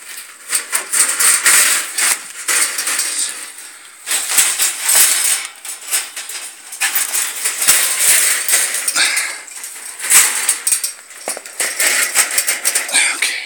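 Wire cage trap rattling and clanking as it is handled and fitted into place, an irregular run of metal clicks and knocks.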